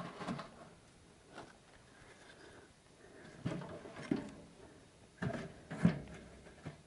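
Knocks, clunks and scrapes of a small metal tent wood stove being tended by hand, its door and firebox handled, about eight separate knocks with the loudest near the end.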